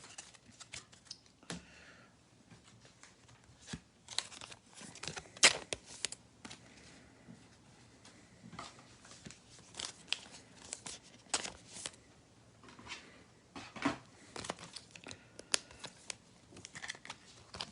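A trading card pack's wrapper being torn and crinkled as the cards are handled: quiet, irregular crackles and small clicks.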